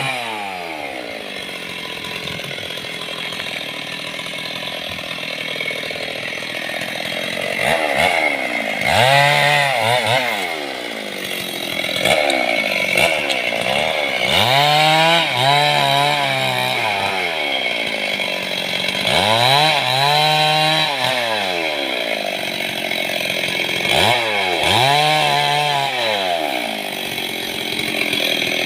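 Stihl chainsaw engine, running at a lower speed and then revving up and dropping back about five times, each rise lasting a couple of seconds, as it works on a mahogany log.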